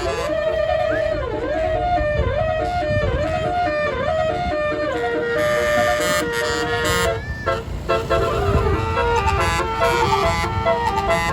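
Multi-tone 'telolet basuri' bus horn playing a melody: a run of quick repeated swooping notes for about five seconds, then held and stepping notes like a tune. A low rumble runs underneath.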